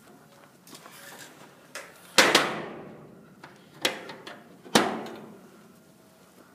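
Three sharp metallic bangs, about two seconds in, near four seconds and just before five seconds. Each rings out and fades over about a second, with the first and last the loudest.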